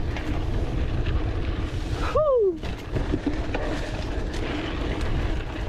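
Wind buffeting the microphone and the rumble and rattle of a mountain bike rolling down a dirt singletrack. About two seconds in there is one short falling call.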